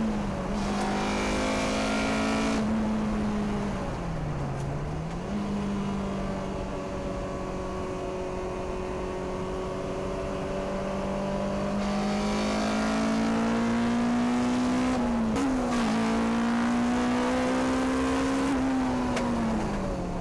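Honda K20 inline-four in a Lotus Elise, heard from inside the cabin under hard driving on track. The engine pitch climbs steadily through the revs, drops suddenly at a gear change just after the start and again about 15 seconds in, dips deeper around four to five seconds in before climbing again, and falls away near the end.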